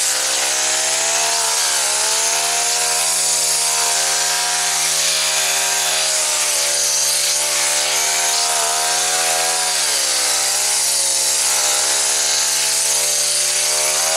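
Small four-stroke Honda GX50-style trimmer engine on a multi-tool running at high speed and driving the hedge trimmer attachment through brambles. Its pitch sags briefly twice, once near the start and once about two-thirds of the way through, then picks back up.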